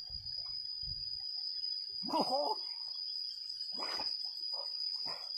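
Steady high-pitched insect drone with water sloshing around a man wading chest-deep as he handles a fish caught in his cast net. A brief vocal sound comes about two seconds in, and a sharp splash about four seconds in.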